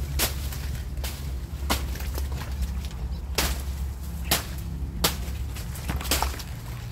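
Dry banana leaves crackling and snapping in about six sharp cracks as they are brushed through, over a steady low rumble.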